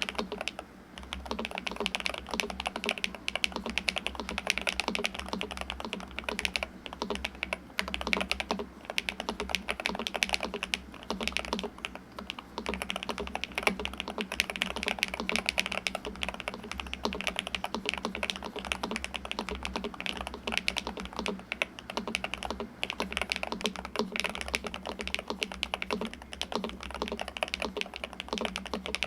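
Continuous fast typing on a Nuphy Halo65 HE Hall-effect keyboard with Magnetic Jade Pro linear switches and double-shot PBT cherry-profile keycaps, untuned out of the box: a steady stream of rich, deep keystroke clacks.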